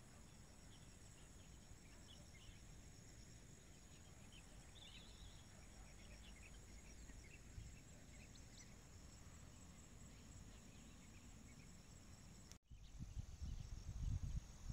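Quiet outdoor riverside ambience: a faint steady insect buzz with scattered faint chirps. Near the end the sound drops out for an instant, then a louder, uneven low rumble comes in.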